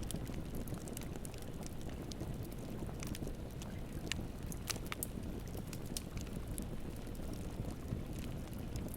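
Campfire crackling with frequent sharp, irregular pops over the steady rush of a river.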